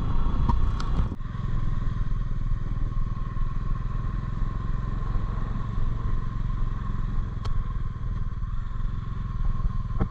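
Bajaj Dominar motorcycle's single-cylinder engine running steadily under way, with a single brief click about seven and a half seconds in.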